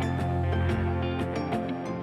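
Background music: a gentle instrumental with plucked guitar notes over a steady bass.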